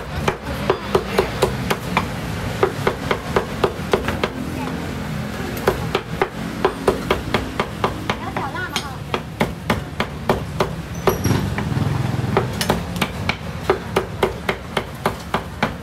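Cleaver chopping cooked meat on a thick wooden chopping block: quick, even knocks, about three or four a second, that thin out briefly around eight seconds in.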